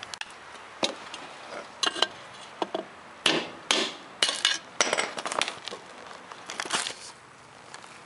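Hammer blows on a steel bar, driving the old worn bushing out of a Saturn Ion's lower control arm: a dozen or so sharp, irregular strikes, the heaviest in the middle.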